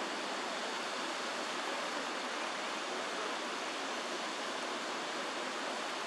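Steady rush of running water, an even noise that does not change.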